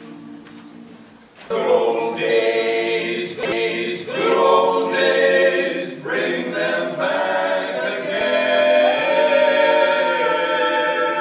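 Barbershop quartet of four men's voices (tenor, lead, baritone and bass) singing a cappella in close harmony. The singing starts about a second and a half in and runs in phrases with short breaks between them.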